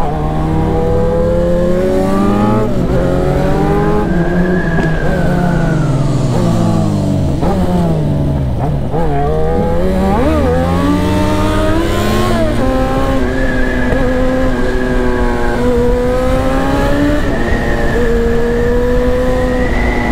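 Yamaha XJ6's 600 cc inline-four engine under way: revs climbing through the first few seconds, easing off with falling pitch about six to nine seconds in, climbing steeply again, then holding fairly steady at cruising revs from about thirteen seconds on.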